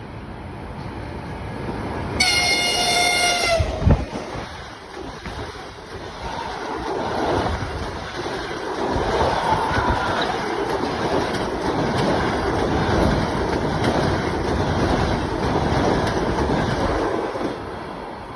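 EP20 electric locomotive's horn sounding one blast of about a second and a half, followed by a sharp thump as the locomotive passes at speed. Then the passenger coaches go by, a steady loud rushing of wheel and rail noise for about thirteen seconds that fades near the end.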